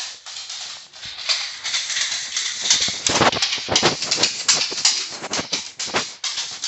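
Footsteps on a hard floor mixed with rubbing and scuffing against a handheld phone's microphone as the carrier walks. It is irregular and fairly loud.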